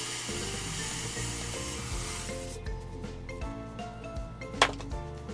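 Visco fuse burning with a steady hiss that stops about two and a half seconds in. A single sharp pop follows near the end, over background music.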